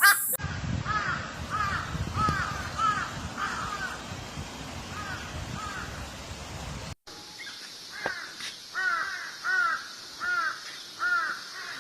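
Crows cawing in a steady run of harsh calls, with a low rumble under the first part. About seven seconds in, the recording switches to a louder, clearer series of caws, roughly two a second.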